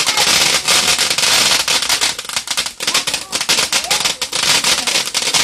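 Ground fountain firework burning, its spray of sparks giving off a dense, rapid crackling of tiny pops.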